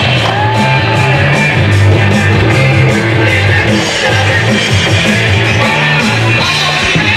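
Loud rock music with electric guitar and a driving bass line.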